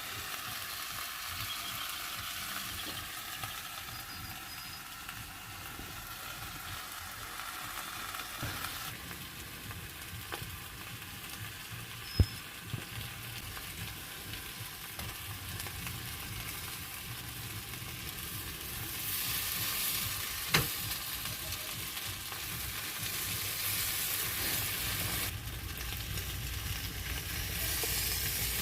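Food sizzling in a pan over a portable camping stove: a steady frying hiss that grows louder about two-thirds of the way through, with a couple of sharp clicks.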